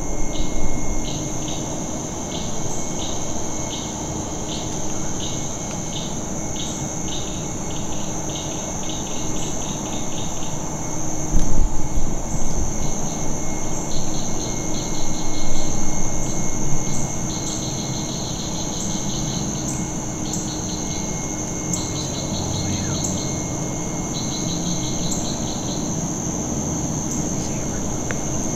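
Insects chirping over a steady high buzz: short chirps evenly spaced about twice a second at first, then quick trains of rapid chirps. Under them runs a low rumbling background noise that swells for several seconds near the middle.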